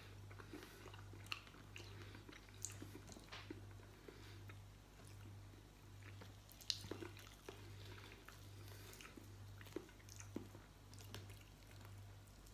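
Faint eating sounds: roast chicken pulled apart by hand and chewed, with small wet clicks and smacks scattered throughout, over a steady low hum.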